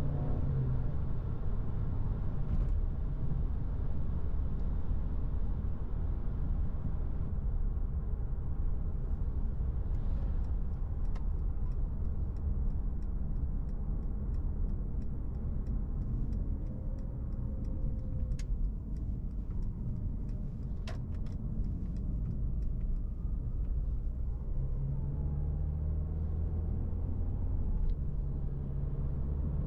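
Inside the cabin of a Mercedes-Benz C200 Coupé: its 1.5-litre turbocharged four-cylinder petrol engine and the tyre and road noise rumble steadily as the car slows down. The engine note falls at the start, a run of light clicks comes in the middle, and the engine hum rises again near the end.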